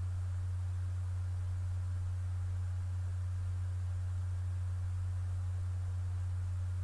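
Steady low electrical hum with faint hiss, one unchanging tone that runs on unbroken.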